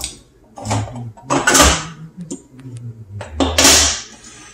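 Handheld can opener cutting around a steel can of diced tomatoes, then the cut lid being lifted off: three short bursts of metal scraping and rattling, the last two the loudest.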